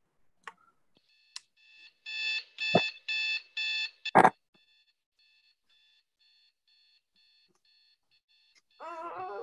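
Electronic alarm clock beeping: four loud beeps, then a sharp knock, then much fainter beeps repeating about twice a second.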